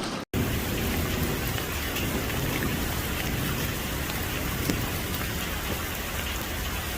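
Heavy rain pouring steadily, an even wash of falling drops.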